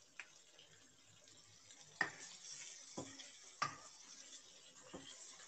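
Spatula stirring chicken in cream sauce in a karahi: faint sizzling, with a few sharp knocks of the spatula against the pan, the loudest about two seconds in.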